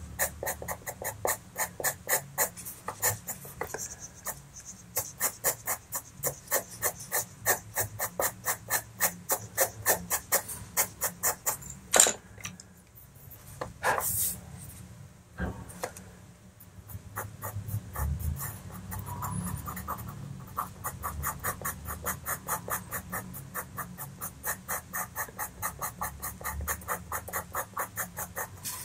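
Pastel pencil scratching on textured pastel paper in quick, short repeated strokes, several a second, as fine hairs of fur are flicked in. The strokes pause briefly around the middle, with a sharper tick there.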